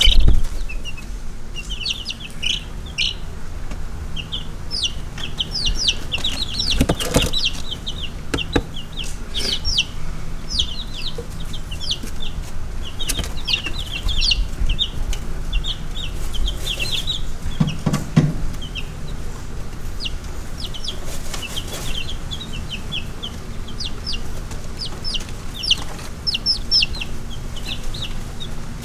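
Baby chicks peeping: many short, high peeps in quick runs, going on throughout.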